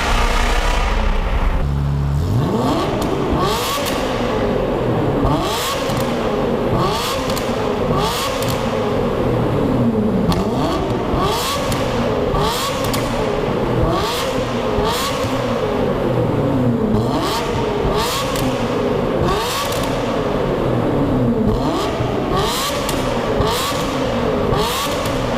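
Ferrari F355's straight-piped 3.5-litre V8 being revved hard in a tunnel, over and over. Each time the revs shoot up sharply and then die away, every second or two, with a crackle at most peaks. The sound has a high, shrieking edge like an old-school Formula 1 car.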